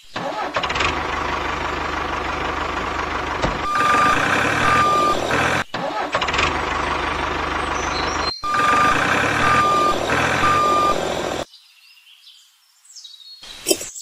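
Tractor diesel engine running, with a reversing alarm beeping in short repeated beeps. The engine stops about three seconds before the end, leaving faint high chirps and a single click.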